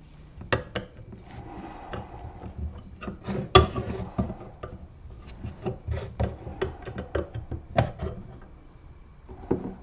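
Hands handling small wooden cutout pieces and tools on a cardboard-covered workbench: irregular light knocks, clicks and rubbing, with one louder knock about three and a half seconds in.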